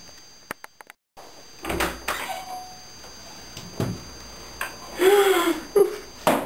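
A wooden panelled door creaking as it opens about five seconds in, among several sharp knocks and thuds. The sound cuts out briefly about a second in.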